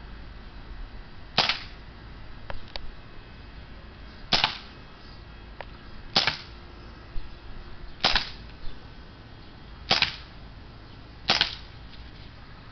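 A CO2-powered Colt Python .357 replica BB revolver fired six times, one sharp pop every one and a half to three seconds, emptying the cylinder. Fainter clicks come between some of the shots.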